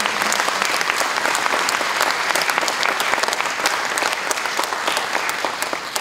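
A large audience applauding, a dense, steady clatter of many hands clapping.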